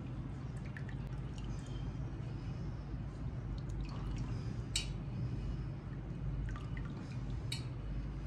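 Liquid dripping in small, scattered drops with light clicks over a steady low hum, with two sharper ticks in the second half.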